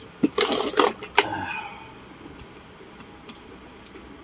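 Small hard objects knocking and clattering as they are handled on a workbench: a quick run of knocks and rattles in the first second and a half, then two faint ticks.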